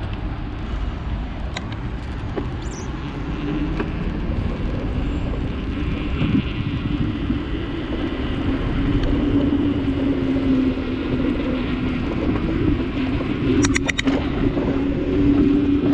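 Steady rumble and rushing noise of riding a bicycle along a paved path: tyres rolling and air passing the microphone. A low hum grows louder over the second half, and a quick run of sharp ticks comes near the end.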